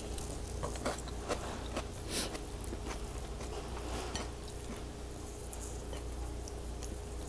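Close-miked wet chewing of a bitten raw tomato: many small soft clicks and smacks over a low steady hum.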